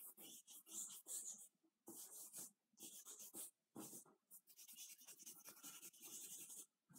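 Faint scratching of a willow charcoal stick on drawing paper in quick, irregular strokes, with a few short pauses.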